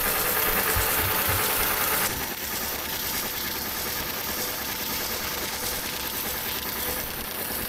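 Industrial sail-loft sewing machine running steadily as it stitches a sun cover onto a headsail, a rapid mechanical chatter that is louder for about the first two seconds and then runs on a little lower.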